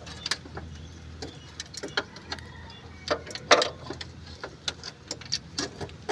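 Scattered clicks and knocks of metal parts being handled over a steady low hum, with a short rushing burst about three and a half seconds in: compressed air blown through a disconnected hydraulic hose to clear out dirt.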